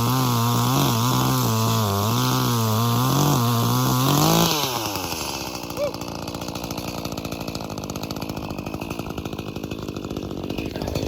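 Small two-stroke homeowner chainsaw cutting through a log at full throttle, its pitch wavering under the load. About four and a half seconds in the cut finishes: the engine revs up briefly as the chain breaks through, then the throttle is released and it drops to a steady idle.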